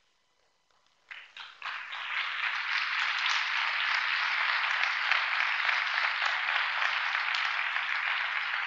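Audience applauding: a few separate claps about a second in, quickly swelling into steady applause.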